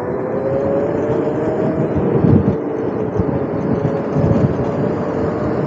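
Electric motor of a modified Razor electric dirt bike whining under way, its pitch rising slightly over the first second and then holding steady. Wind buffets the microphone in two louder gusts, about two and four seconds in.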